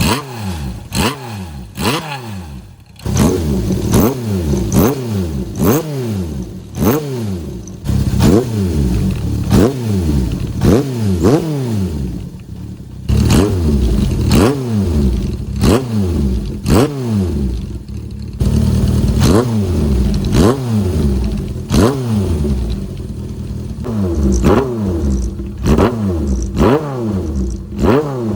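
Honda CB750 Four's air-cooled inline-four revved in quick throttle blips through a Yoshimura Straight Cyclone short exhaust with a silencer baffle fitted, each blip sweeping up in pitch and falling back, about one a second. The engine drops back to idle briefly three times.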